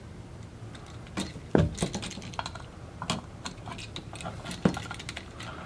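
Small clicks and ticks of needle-nose pliers and stiff copper wire being handled at a new wall outlet, with two sharper snaps, one about a second and a half in and one past four seconds.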